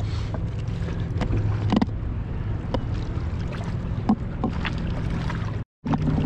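Steady rush of swift river current below a dam, with a low steady hum under it and a couple of brief knocks; the sound drops out for a moment near the end.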